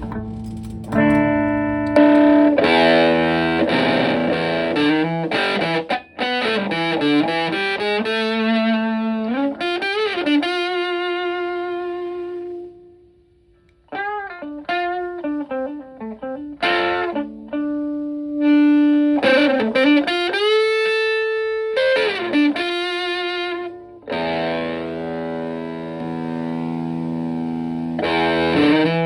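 Les Paul electric guitar played through a modified Vox Tone Bender fuzz pedal into a Fender Twin-style clone amp: fuzzy sustained chords, then single-note lead lines with string bends and wide vibrato. It stops briefly about halfway through, and thick chords ring out near the end.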